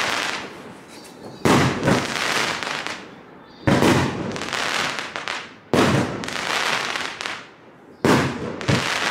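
Fireworks cake with 30 mm tubes firing: four loud bangs about two seconds apart, each followed by crackling that fades away.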